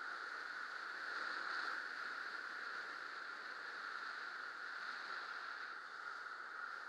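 Steady rush of wind over the camera of a speedflyer in fast flight, an even hiss that swells slightly about a second or two in.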